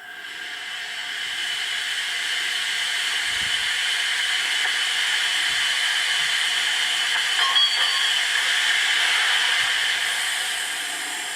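Model steam locomotive's sound decoder playing a long steam hiss as the loco starts away from the station, swelling over the first couple of seconds and fading out near the end.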